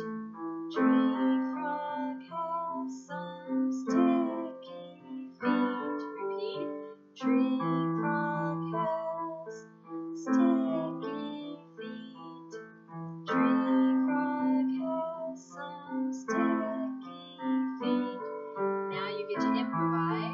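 Electronic keyboard with a piano voice playing a gentle accompaniment: a repeating pattern of chords and single notes, with a new phrase beginning about every three seconds.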